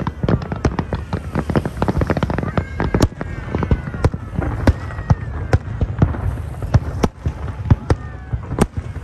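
Aerial firework shells bursting in a dense barrage: many sharp bangs, several a second, some much louder than the rest, with crackling between them.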